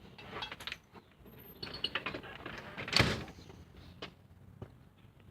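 Matches being struck and handled to light a bottle rocket, with a few short scratchy bursts, then one short, sharp, loud burst about three seconds in.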